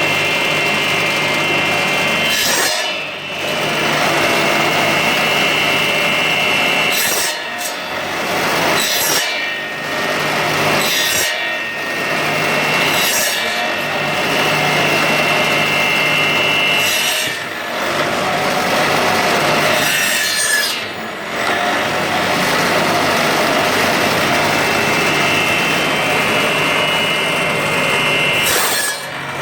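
Electric bone-cutting saw machine running with a steady motor hum and high whine while its blade grinds through bone, the rasping dropping away briefly several times between cuts.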